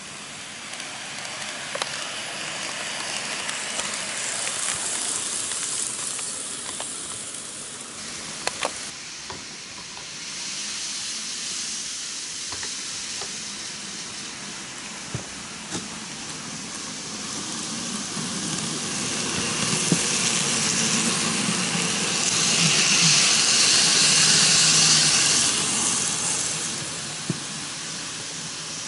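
N gauge model trains running on the track: a steady hiss of wheels and motors with a few sharp clicks scattered through, loudest for several seconds past the middle as a train passes close.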